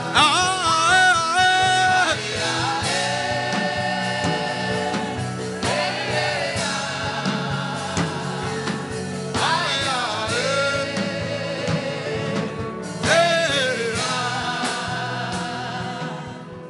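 Gospel worship singing over instrumental backing: long sung phrases with held, wavering notes, fading out near the end.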